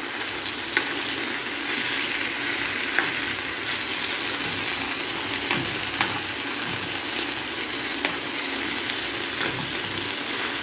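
Chicken pieces in chilli sauce sizzling steadily in a frying pan, with a few light clicks of metal tongs against the pan as the pieces are turned.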